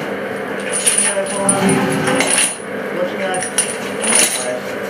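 Steel mine-conveyor parts being handled by hand: several sharp metallic clinks and scrapes over a steady low hum.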